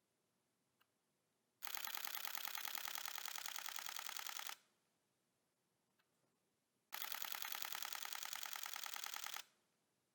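DSLR camera shutter firing in continuous burst mode: two runs of rapid shutter clicks, the first about three seconds long, the second about two and a half.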